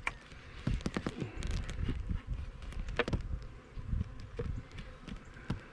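Honeybees buzzing around a hive entrance, with scattered short clicks and knocks of handling, the loudest about three seconds in.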